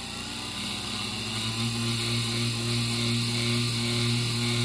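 Small Johnson electric test motor running and driving the rebuilt gear train of an HO-scale Shay locomotive truck: a steady electric hum with a high whine, growing louder over the first couple of seconds. The gearing is turning freely and working.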